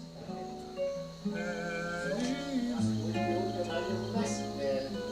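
Instrumental passage of an acoustic MPB/jazz band led by acoustic guitar, with sustained notes over it and a deep bass note coming in about three seconds in.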